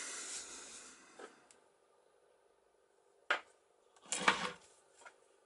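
Small metal parts of a boat cabin lock, its broken handle hub and a loose tab, handled on a workbench: a sharp click about three seconds in, then a brief clatter of knocks a second later.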